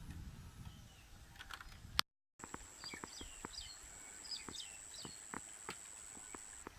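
Outdoor animal sounds: short chirping calls and a steady high-pitched insect-like whine, with scattered sharp clicks, after a brief low rumble that cuts off about two seconds in.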